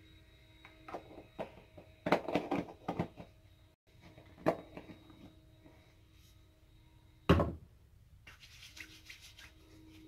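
Rustling and clicking of small things being handled close to the microphone, with one thump about seven seconds in, over a faint steady hum.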